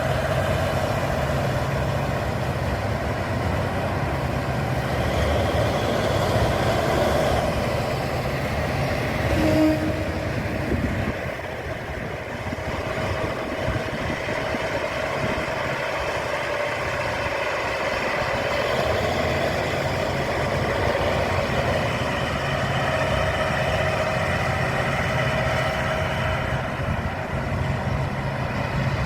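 KiHa 183 diesel railcar's engine running steadily, with a brief louder moment about a third of the way through.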